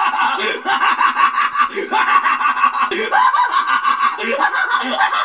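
Cartoon characters' voices laughing in rapid, repeated bursts, played through a TV speaker and sounding thin with no bass.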